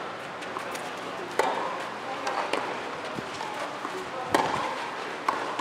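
Tennis ball struck back and forth in a singles rally on a clay court: several sharp racket pops spaced about one to two seconds apart, the loudest about four seconds in.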